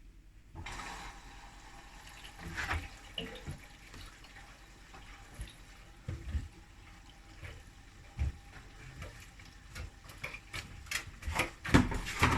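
Washing machine taking in water, a steady rushing hiss, with scattered soft thumps and clicks from the drum that come thicker near the end.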